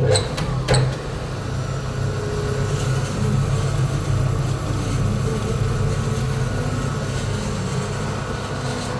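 Car engine running at a steady idle, with two sharp knocks in the first second.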